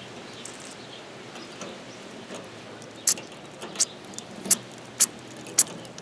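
A series of sharp clicks, about two a second, starting about halfway through over a low steady background.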